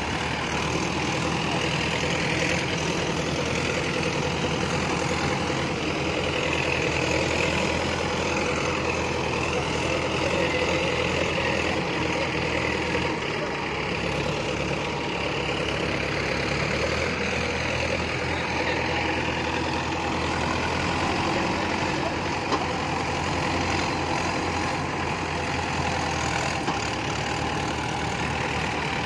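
Diesel farm tractor engines running steadily under heavy load as two tractors pull against each other on a tow rope.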